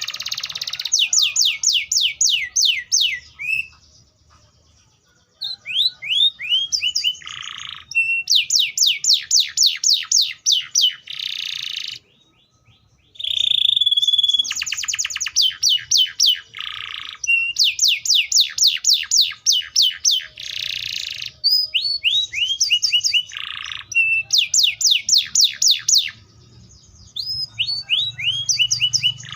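Canary singing: fast trills of high, repeated downward-sweeping notes, about seven a second, in phrases a few seconds long with slower sliding notes between them and two brief pauses.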